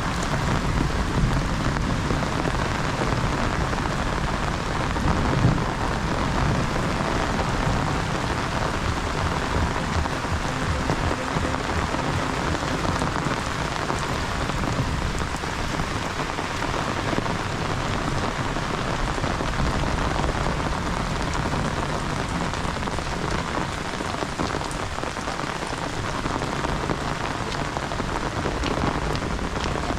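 Heavy rain falling steadily on surfaces, an even, unbroken hiss, with one brief louder knock about five seconds in.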